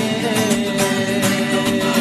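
Music: a song's accompaniment with one long note held throughout, between sung lines.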